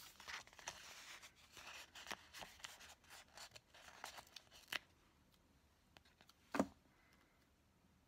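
Paper planner stickers being handled and peeled from their sheet: faint rustling and crinkling of paper with small ticks, quieter in the second half, and one sharper tap late on.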